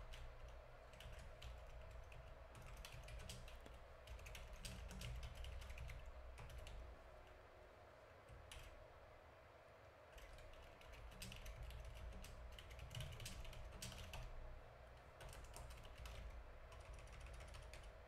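Computer keyboard typing, faint, in quick bursts of keystrokes with a pause of a couple of seconds midway, over a faint low hum.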